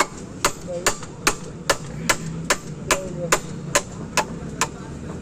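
Steady, evenly paced hammer blows, about two and a half strikes a second, over a low steady hum.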